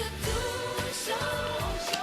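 Background pop music with a sung melody over a steady beat.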